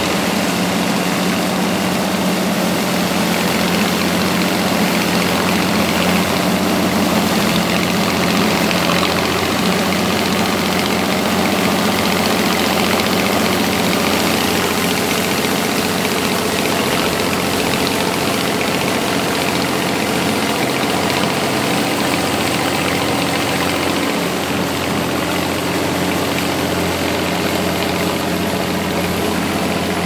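Vintage Massey-Harris 21 self-propelled combine harvester with its Chrysler engine running steadily under load while cutting wheat, together with a tractor engine running alongside as grain is unloaded on the move.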